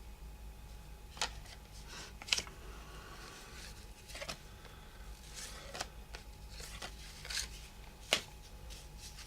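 Baseball cards being handled and flipped through by hand: soft rustling of card stock with about six short, sharp snaps spread through, faint overall.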